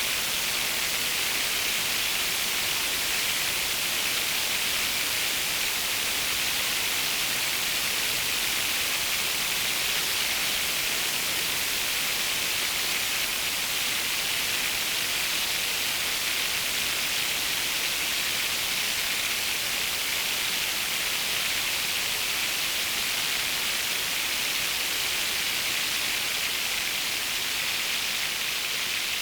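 Synthesized rain from a Eurorack patch: Mutable Instruments Plaits with noise from a Kinks module, its pattering crackle brought out by a Magneto delay, giving a steady, dense hiss more like a heavy downpour than light rain.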